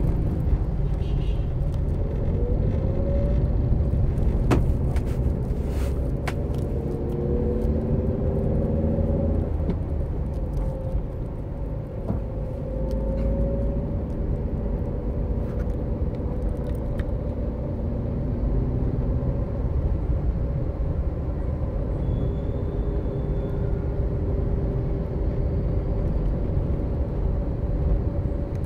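Car driving in town traffic, heard from inside the car: a steady low rumble of engine and road noise, with an engine hum that drifts up and down in pitch as the car speeds up and slows.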